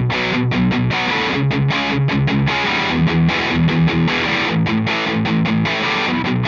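Distorted electric guitar played through an amp cabinet: a fast, choppy riff of short chords with brief gaps between them, several a second. It is picked up by a ribbon microphone with a high-pass EQ applied.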